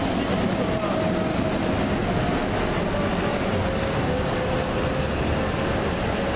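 Steady city street traffic noise, with the drawn-out hum of a vehicle engine that slowly sinks in pitch.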